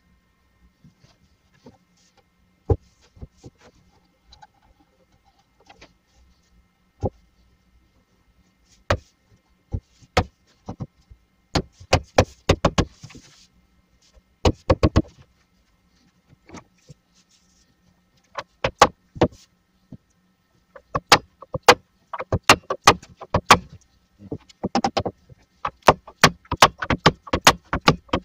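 Sharp knocks of a hammer striking a wooden block held on the shelf uprights, driving the glued joints together. Single knocks a second or two apart at first, then quick runs of several knocks in a row, coming thickest near the end.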